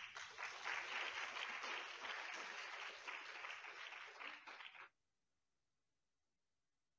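Audience applauding, stopping suddenly about five seconds in.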